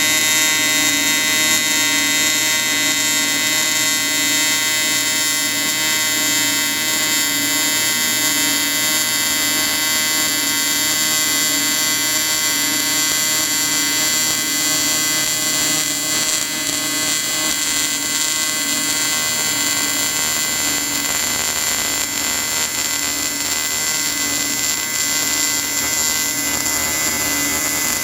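Electric welding arc buzzing steadily, with a slight regular pulsing a little over once a second.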